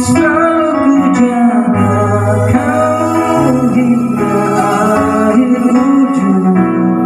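A man singing through an Ashley handheld wireless microphone over an instrumental backing track with guitar and organ.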